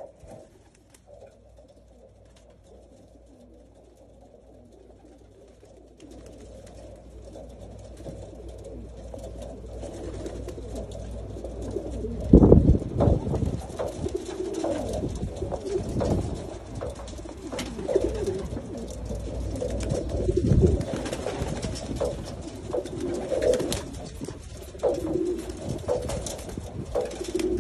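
A flock of racing homing pigeons cooing: low, wavering coos overlapping one another, faint at first and growing louder and busier about halfway through. Two heavy low thumps stand out, one about halfway through and one later.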